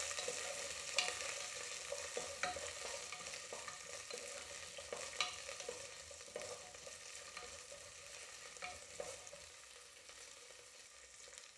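Small shallots sizzling in hot coconut oil in a pressure cooker, stirred with a wooden spatula that scrapes and taps against the pot now and then. The stirring stops and the sizzle fades toward the end.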